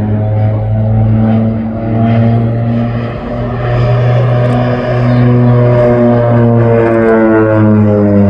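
North American OV-10 Bronco's twin Garrett T76 turboprops running in a fly-past, a loud steady propeller drone. The pitch falls in the last second or two as the aircraft goes by.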